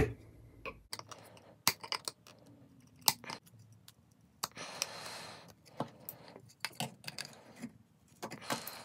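Needle-nose pliers gripping and snapping small 3D-printed plastic support pieces out of a frame wall: a run of sharp clicks and cracks, with a short rasping noise about five seconds in.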